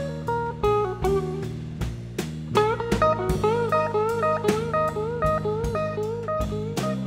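Live blues trio playing an instrumental passage: electric guitar soloing over electric bass and drum kit. From about two and a half seconds in, the guitar repeats quick bent notes that rise and fall.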